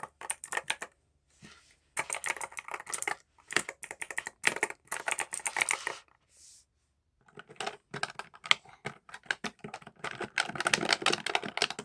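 Keys of a computer keyboard being typed fast, a dense clatter of clicks in several bursts with short pauses between.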